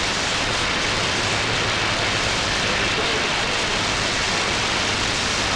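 CB radio receiver putting out a steady hiss of band static between transmissions, with a faint low hum underneath.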